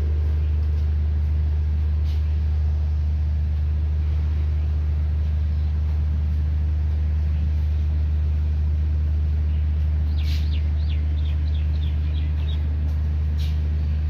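A steady low rumble throughout, with small birds chirping faintly over it: a quick run of about eight short chirps near the end and a single chirp about two seconds in.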